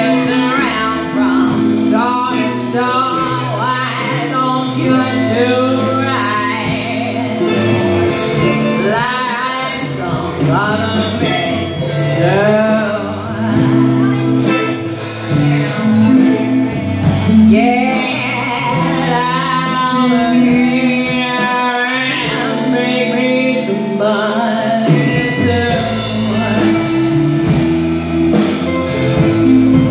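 Live band playing a blues song: singing over electric guitars, bass and drums.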